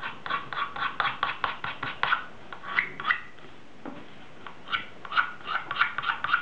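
A bare utility-knife blade scraping a self-coloured plastic motorcycle hand guard in short, quick strokes, about four a second, some with a slight squeak, easing off briefly a little past halfway. The light passes are shaving off the burrs and scratches left by a fall.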